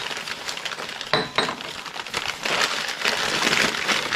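Wrapping rustling and crinkling as clear glass pieces are handled and unpacked, with two sharp glass clinks of coasters knocking together a little over a second in.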